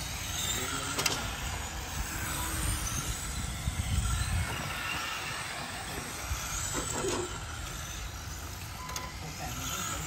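1/10-scale electric RC touring cars running laps on concrete, their motors whining and rising and falling in pitch as they accelerate and brake, over a low rumble.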